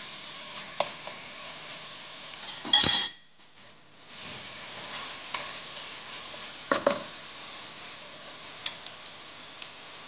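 Pork stirred in a wok with a wooden spatula and a metal fork: scattered clinks and scrapes against the pan over a steady hiss of frying. The loudest is a ringing metallic clink about three seconds in.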